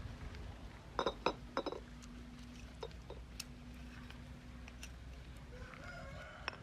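A few quick, light ringing clinks of small hard objects knocking together about a second in, then a couple of fainter ticks over a low steady hum.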